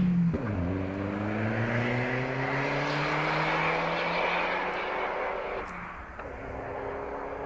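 Straight-piped Škoda Octavia RS 1.8-litre turbo four-cylinder, cat removed, accelerating hard. The engine note drops at the start, climbs steadily through a gear, breaks briefly for an upshift about six seconds in, then climbs again.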